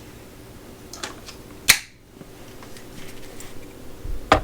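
Sharp clicks and light knocks as a Milwaukee 1/2-inch stubby impact wrench and its XC6 battery are handled and set down on a scale. There is one loud click a little under two seconds in and another near the end.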